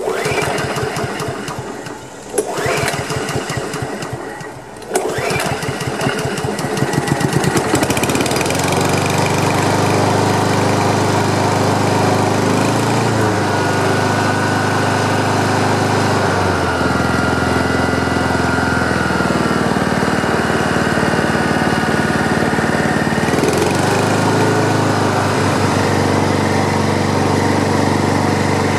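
Honda HRM215 lawn mower engine being pull-started, with a couple of sharp pulls in the first few seconds before it catches about five seconds in and settles into a steady run. This is its first start after the clogged fuel line was cleared and the carburetor primed. Its speed shifts near the middle and again later, with a thin high tone over it briefly around the middle.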